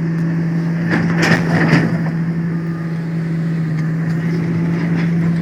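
Large excavator's diesel engine running steadily at high throttle, with a burst of noise about a second in.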